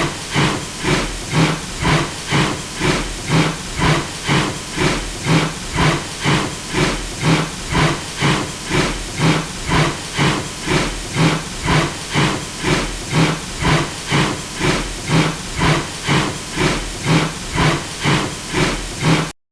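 Steam locomotive chuffing at a steady pace, about two exhaust puffs a second, each a hissing blast of steam. It cuts off suddenly near the end.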